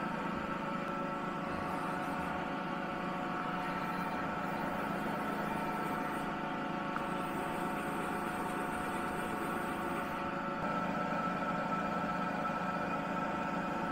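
Tormach CNC milling machine running steadily: a constant hum with several steady whining tones on top.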